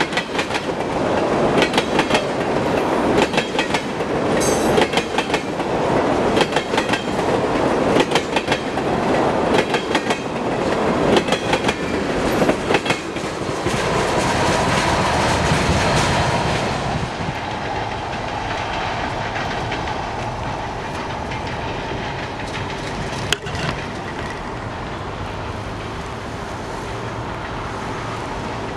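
Empty ethanol tank cars of a freight train rolling past, wheels clicking sharply over rail joints over a heavy rumble. About two-thirds of the way through, the sound drops to a quieter, steadier rumble as the train moves off down the track.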